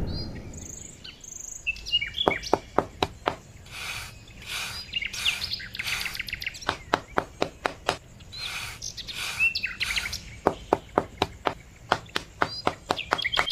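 Small birds chirping, over a small metal trowel scraping and smoothing fine sand in repeated short strokes. Runs of quick light taps come about four a second.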